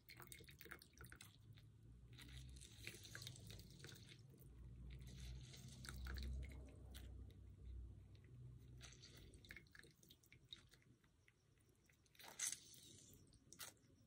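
Lemon wedges squeezed by hand over a bowl of soup: wet squishing and crackling of the peel in repeated clusters, with juice dripping into the broth. One louder squeeze comes near the end.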